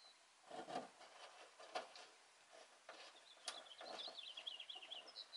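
Faint handling sounds of a wooden strip being fitted against a van's bare metal ceiling rib: a few light knocks and some rubbing, with a run of faint high-pitched ticks in the second half.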